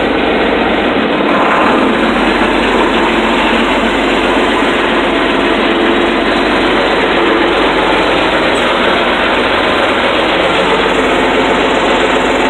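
John Deere 7020's turbocharged six-cylinder diesel engine running steadily, heard loud from inside the tractor's cab.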